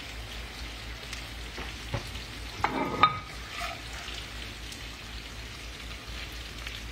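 Sliced potatoes sizzling in hot oil in a cast iron skillet, with a metal spatula scraping and knocking against the pan a few times around the middle.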